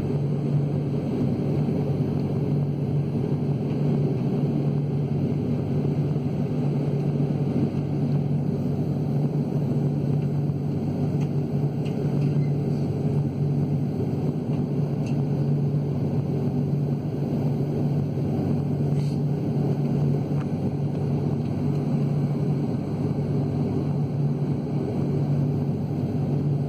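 Steady cabin noise inside a jet airliner taxiing: an even, low mechanical hum with a few steady droning tones.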